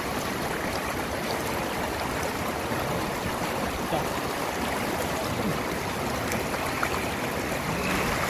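Shallow muddy floodwater running steadily over a dirt road, heard close to the surface, with hands splashing in it as they feel for crabs.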